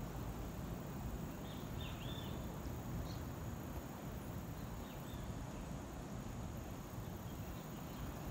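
Outdoor ambience: a steady low rumble with a few short, high chirps, a small cluster about one and a half to two seconds in and another near five seconds.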